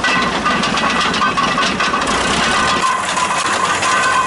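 Vehicle engine held at high revs during a burnout, with spinning tires giving a steady high squeal over the engine noise.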